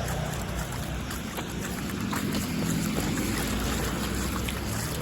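Water sloshing and splashing from footsteps wading through deep, flooded puddles, over a steady low rumble of wind on the microphone.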